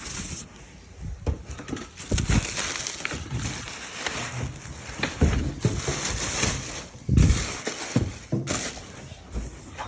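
Irregular knocks and thumps with rustling between them, the loudest thump about seven seconds in.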